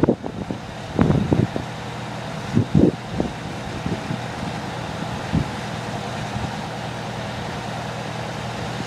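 Fire ladder truck's engine running steadily, with a few short knocks or bumps over it.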